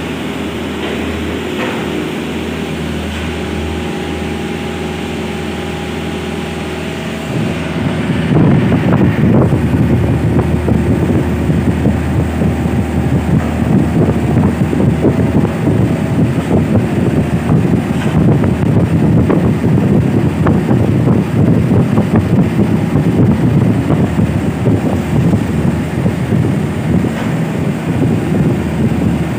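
Kubota mini excavator's diesel engine running steadily with a faint whine over it. About seven seconds in, it turns louder and rougher and stays there as the machine digs.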